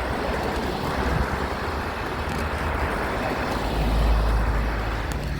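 Road traffic noise: a steady rush with a deep rumble that swells about four seconds in as a vehicle goes by.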